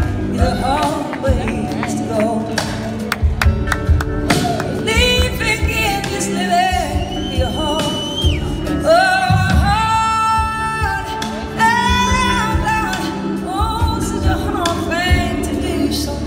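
Live blues-rock band playing: drums and electric guitar under a held, wavering lead melody line. The sound is heard from among the audience in a theatre.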